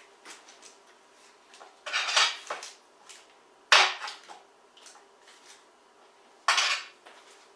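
Kitchen utensils and dishes knocking and clinking on a countertop in a few separate clatters, the sharpest a little before four seconds in, with small clicks between.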